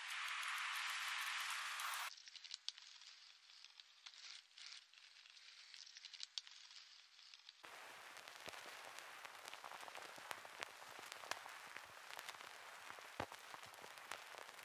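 Opening of a lo-fi track: a steady hiss of rain that cuts off sharply about two seconds in, then near silence with a few scattered faint clicks. From about halfway a faint continuous crackle of many small clicks sets in.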